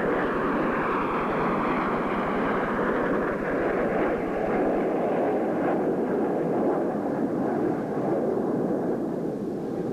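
Turbojet noise from a formation of Canadair CT-114 Tutor jets flying past, each with a single engine of 2,700 pounds of thrust: a steady rush with a faint high whine falling in pitch, easing a little near the end.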